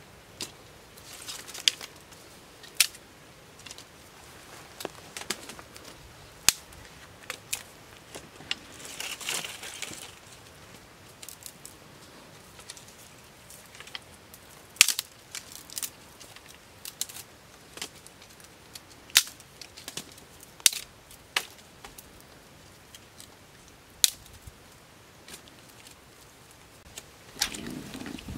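Sharp, irregular knocks and cracks on rock, one every second or so with pauses between, from firewood sticks being chopped and broken and stones being set down, with a brief rustle about nine seconds in.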